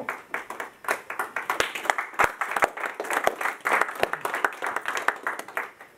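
A small group of people clapping by hand: applause that thickens after about a second and dies away near the end.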